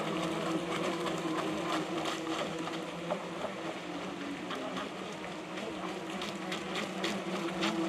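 Small electric motors of radio-controlled Club 500 racing model boats whining steadily as the boats run across the water, the pitch wavering slightly.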